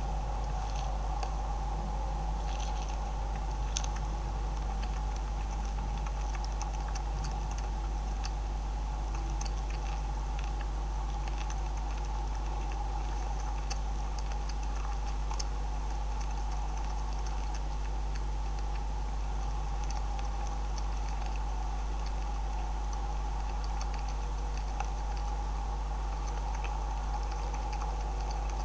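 Beavers chewing and crunching seed and grain, heard as faint, irregular small clicks over a steady low hum.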